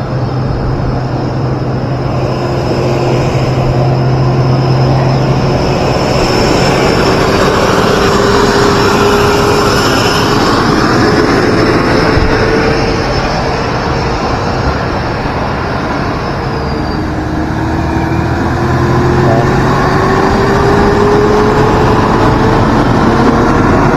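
Vehicle engine and road noise from travelling along a road, with a steady hum and an engine tone that climbs slowly twice. A green dump truck runs close alongside through the middle.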